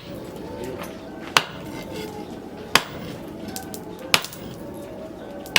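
Hammer blows on steel being forged, evenly paced at about one strike every second and a half.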